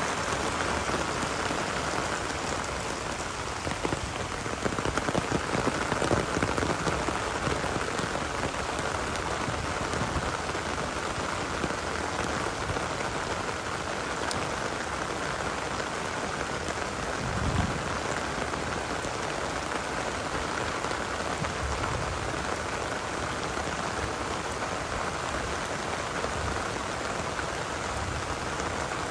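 Steady heavy rain falling and pattering on surfaces, with a louder, patchier stretch of close drop hits about four to seven seconds in.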